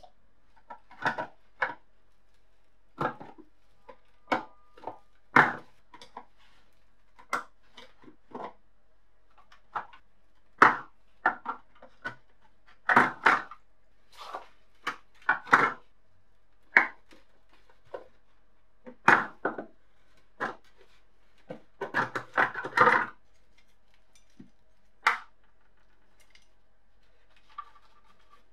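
Rusty steel lever parts of an old kitchen scale knocking and rattling against its sheet-metal housing as they are handled and lifted out: irregular clanks and taps, with a quick burst of rattling near the end.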